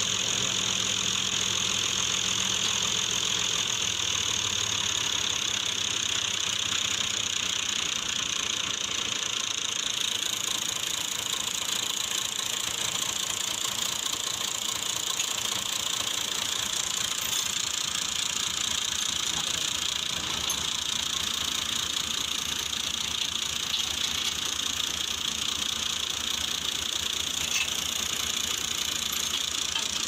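Massey Ferguson 240 tractor's three-cylinder diesel engine idling, cutting out about three to four seconds in. A steady high-pitched drone of unclear source runs throughout and is the loudest sound.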